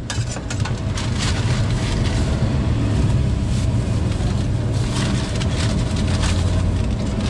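Steady low rumble like a running engine, with the light crinkle and rustle of a thin plastic bag being opened and handled over it.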